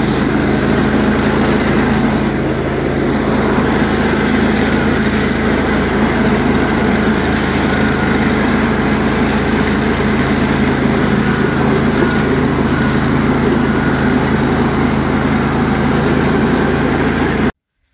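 Early-1980s John Deere 316 lawn tractor's engine running steadily under way across grass. It cuts off suddenly just before the end.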